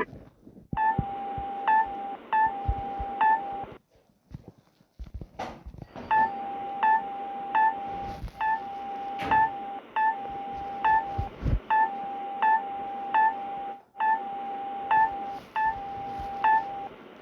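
Electronic alert signal with a thin, telephone-line sound: a steady mid-pitched tone interrupted by short, slightly higher beeps about every two-thirds of a second. It stops for about two seconds roughly four seconds in, then starts again.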